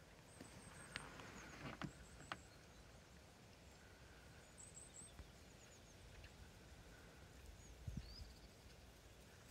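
Near silence: quiet outdoor ambience with faint, high bird chirps, a few soft clicks in the first couple of seconds and a dull thump near the end.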